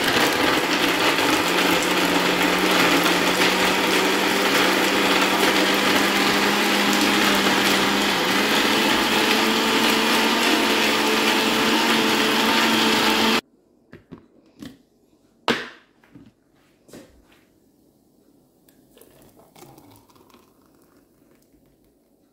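Kenwood countertop blender running at one steady speed with a steady motor hum, blending almonds, ice, sugar and milk into a drink, then cutting off suddenly about 13 seconds in. A few sharp knocks follow in the quiet after it stops.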